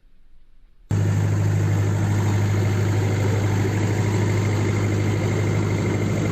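Modified four-wheel-drive jeep's engine idling steadily with a low, even hum. It cuts in abruptly about a second in.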